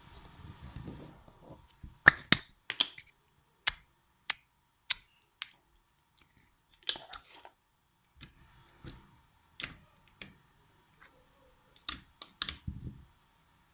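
Pink slime being squeezed and poked by hand, giving irregular sharp clicks and pops, some in quick pairs, after a brief rustle at the start.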